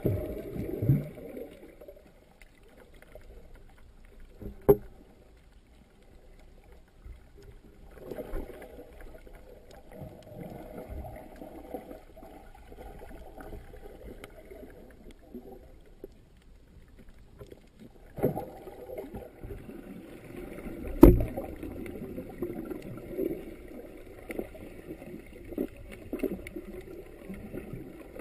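Muffled underwater water noise heard through a GoPro Hero2's sealed dive housing: low rushing and sloshing that swells and fades as the camera moves, with two sharp knocks, one about five seconds in and a louder one about twenty-one seconds in.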